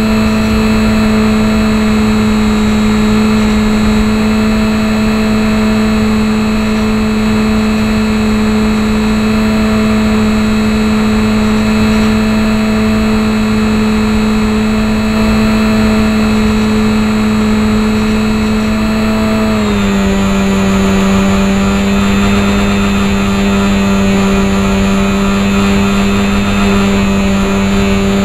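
Electric motor and propeller of a HobbyZone Champ RC plane running steadily with a constant whine, heard from a keychain camera on board the plane. About two-thirds of the way through the whine drops slightly in pitch.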